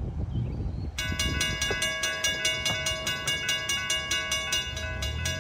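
Railroad crossing bells, a GS Type 3 electronic bell and a WRRS bell, start ringing about a second in and keep up a rapid run of strikes, several a second, as the crossing signals activate for an approaching train. A low rumble is heard at the start.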